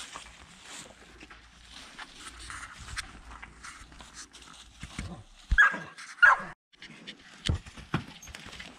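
A dog panting and whining, with two loud short cries about halfway through and two sharp knocks near the end.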